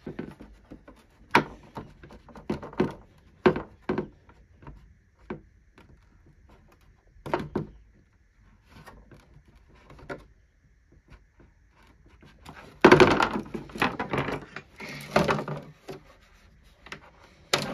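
Handling noise from a plastic Suzuki SV650S fairing panel on a wooden desk as broken rubber indicator mounts are worked free: scattered knocks and clicks, then a busier stretch of rattling and knocking about thirteen seconds in.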